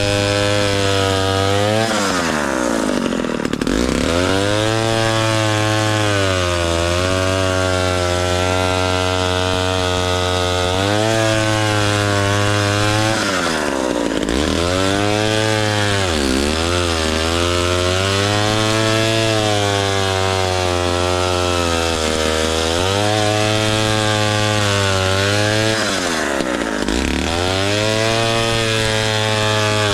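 The 98cc Villiers 5F two-stroke engine of a 1957 Danarm Fury chainsaw running at high speed. Its pitch dips sharply and climbs back about four times.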